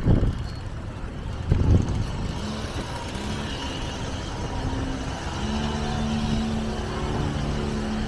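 Motor vehicle engine running with a steady hum that grows stronger in the second half, over street noise. Two low rumbles in the first two seconds.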